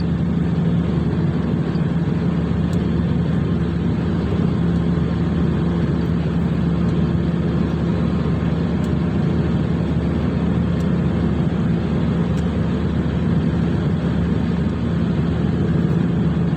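Ship's machinery running with a steady drone and a constant low hum, unchanging throughout.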